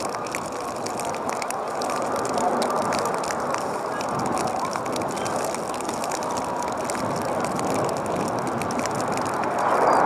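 Steady outdoor ambience at a soccer field: a continuous murmur of distant players' and spectators' voices with scattered faint clicks, swelling briefly near the end.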